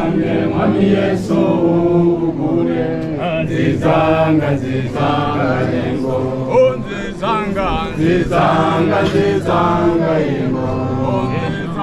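A group of voices singing a hymn together, with long held notes.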